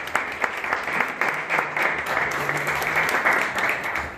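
An audience applauding: many hands clapping together in a dense patter.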